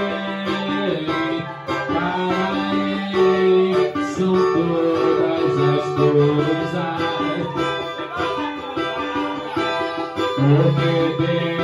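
Cavaquinho played steadily, with a man's voice singing long held notes over it.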